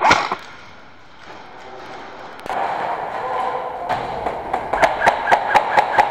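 Airsoft rifle fired in quick single shots, a string of sharp cracks about three or four a second, over a steady background hum. At the very start there is one short loud bark-like burst.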